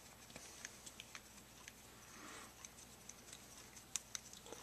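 Faint, scattered light ticks and clicks as a screwdriver with a Pac-Man adjusting bit backs an adjustment screw out of a small aluminium two-stroke carburetor, with one sharper click about four seconds in.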